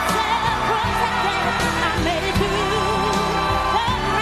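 Music: a lead singer holding notes with wide vibrato over a band with a steady drum beat.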